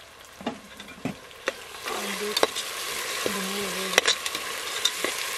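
Ground mint, green chilli and ginger-garlic paste spooned into hot oil and onions in a pressure cooker pot. The paste starts sizzling loudly about two seconds in. A metal spoon clacks against the pot several times.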